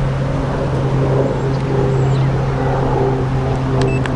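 FPV quadcopter's motors and propellers humming steadily in flight, with a low rumble of wind on the microphone.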